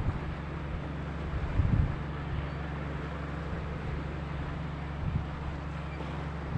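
Boat engine running with a steady low drone, with gusts of wind buffeting the microphone a few times.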